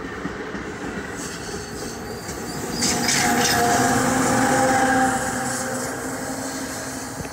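NJ Transit train passing close by: a steady rumble of the train running on the rails that swells to its loudest about three seconds in with a few sharp high clicks, holds for a couple of seconds, then fades.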